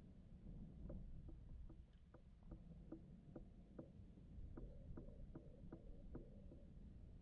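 Faint, regular knocking, about two to three knocks a second, over a low outdoor rumble.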